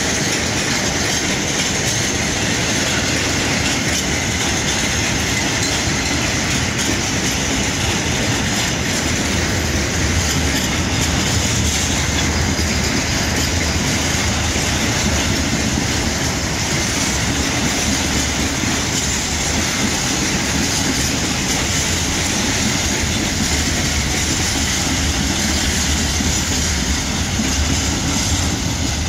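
Freight train rolling past: a long string of loaded flat wagons and open wagons making a steady, loud noise of wheels on rails.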